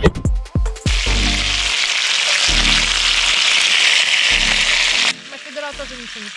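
Chicken frying in a pan, a loud steady sizzle that starts about a second in and cuts off suddenly near the end, leaving a quieter sizzle. Background music plays over the start and faintly underneath.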